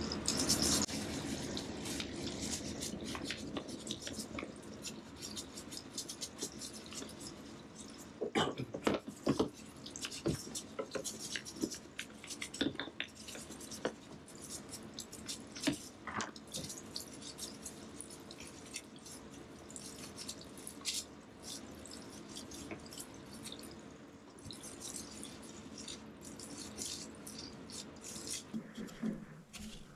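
Liquid dripping and trickling, with scattered sharp clicks and knocks and a faint steady hum underneath.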